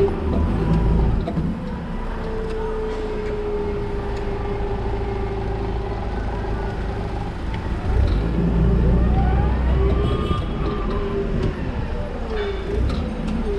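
Toyota counterbalance forklift driving on a concrete floor: a steady low rumble with a humming tone that wavers in pitch. About nine seconds in, a whine rises in pitch as the truck speeds up or works its hydraulics.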